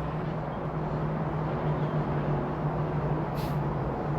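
A steady low hum over an even rumbling noise, of the kind a running vehicle makes, with a brief hiss about three and a half seconds in.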